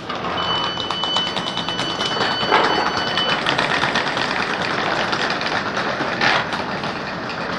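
Wheeled suitcases rattling over the joints of platform paving slabs as passengers head for the open train doors, with a dense run of rapid clicks and shuffling. A steady high beep sounds for about three seconds near the start.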